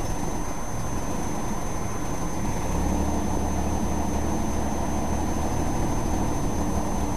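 1994 Chrysler LHS 3.5L V6 idling roughly with its catalytic converters opened up, so the exhaust sounds louder than stock. About three seconds in the exhaust note gets deeper and a little louder. The idle is known to sag until the engine almost dies, a fault the owners have not yet traced.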